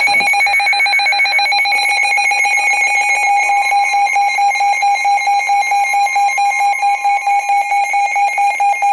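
Emergency Alert System attention signal: a loud, steady, shrill electronic alarm tone with a fast pulsing, announcing a severe thunderstorm warning.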